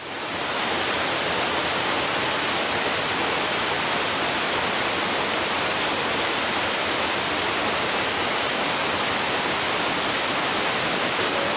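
Waterfall rushing: a steady, dense noise of falling water that fades in over the first moment and then holds even.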